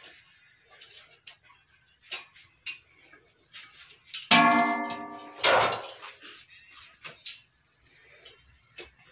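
Thick chana dal simmering in a pot, bubbles breaking with scattered soft pops. About four seconds in, a loud steady pitched sound lasts about a second, followed at once by a short rushing noise.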